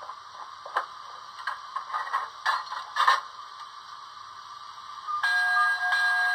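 HO-scale model steam locomotive's onboard sound playing standing sounds through its small speaker: irregular light clicks and a few sharper knocks. About five seconds in, a louder steady ringing sound with several fixed pitches starts suddenly.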